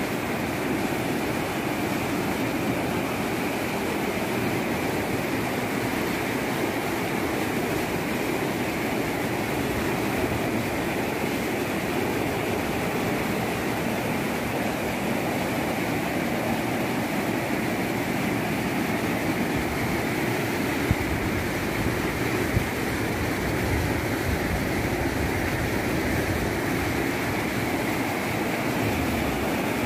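Debris flow of mud, water and rock rushing down a hillside: a steady, heavy rushing noise, with two sharp knocks about a second and a half apart a little past the middle.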